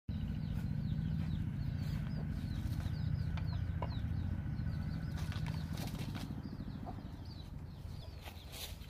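A steady low rumble that slowly fades, with a rapid run of short high bird chirps over it. A few light knocks come near the end as a pot and basket are set down on a bamboo slat table.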